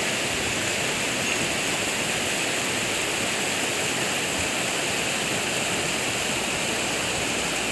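Lahar floodwater, a rain-driven volcanic mudflow of grey, ash-laden water, rushing fast down a river bed with a steady, unbroken rush.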